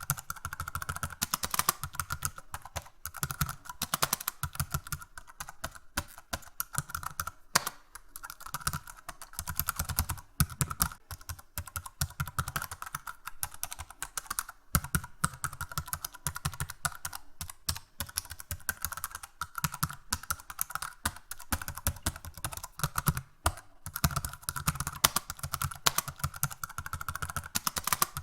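Fast, hard typing on a computer keyboard: a dense run of key clicks in quick bursts with short pauses between them, with a faint steady hum underneath.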